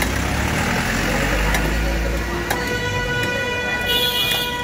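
Street traffic: a motor vehicle's low engine rumble, then from about halfway a long, steady-pitched vehicle horn or siren tone that holds to the end.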